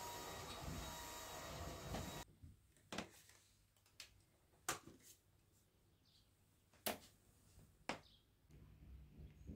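A steady rushing noise with a faint hum cuts off suddenly about two seconds in. What follows is quiet, with five sharp clicks or taps spaced about a second apart and faint high chirps.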